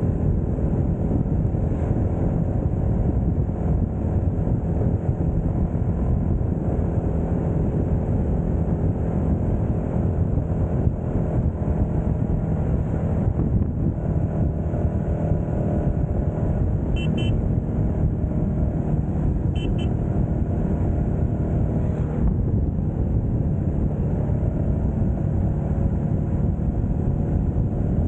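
Royal Enfield Meteor 350's single-cylinder engine running steadily at cruising speed on the open road.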